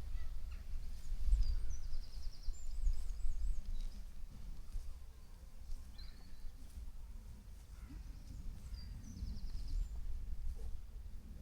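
Outdoor birdsong: a small songbird gives a quick trill of fast, evenly repeated high notes, once early on and again near the end, with a few other short chirps. Underneath is a steady low rumble, louder than the birds.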